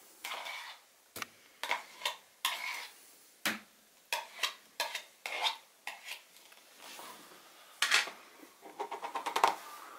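Palette knife scraping thick screenprinting ink out of a plastic pot, with irregular short scrapes and clicks of the blade against the pot, and a quick run of light taps near the end.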